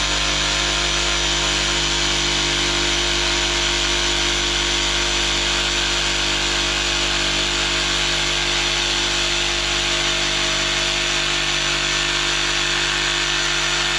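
DeWALT DCS334 20-volt brushless cordless jigsaw sawing through a 2x4 in its smooth cutting mode, running steadily at a constant speed. This is the slower, non-aggressive setting that leaves a clean edge.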